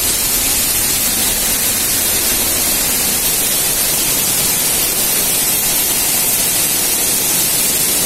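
Waterfall pouring: a loud, steady, even rush of falling water with no breaks.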